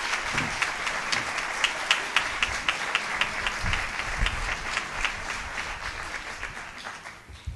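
Audience applauding with many hands clapping, the applause dying away near the end.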